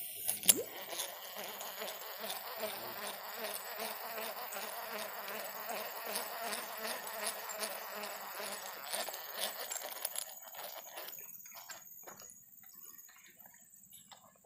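An insect buzzing with a wavering pitch, fading away about eleven seconds in, with scattered faint clicks.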